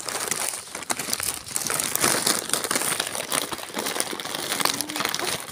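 Continuous crinkling and rustling close to the phone's microphone, dense with small crackles, as the phone is handled and moved about.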